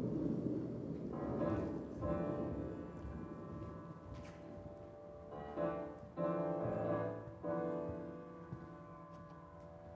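Slow piano music: single chords struck about a second apart, each ringing and fading, with a pause of a few seconds between the first two and the next three.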